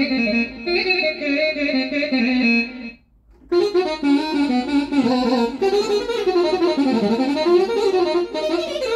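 Korg Krome keyboard playing a single lead-voice melody in Balkan style, with fast ornaments and pitch bends. The playing stops briefly about three seconds in, then resumes.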